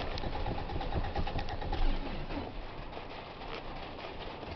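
1981 Subaru GL wagon's flat-four engine struggling to run, a steady low rumble; the occupants suspect it is out of gas.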